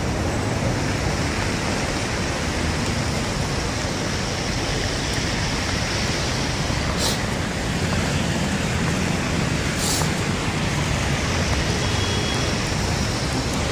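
Steady rushing noise of wind on a handheld phone microphone mixed with city street traffic, with two short high hisses about seven and ten seconds in.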